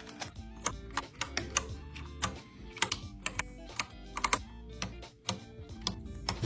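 Quick, irregular sharp clicks and taps from small items and packaging being handled, over background music with a steady low bass.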